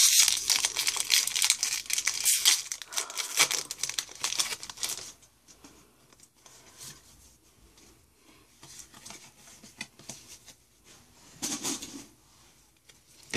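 A Pokémon TCG BREAKthrough booster pack's foil wrapper being torn open and crinkled for about five seconds, then fainter rustling of the wrapper and cards.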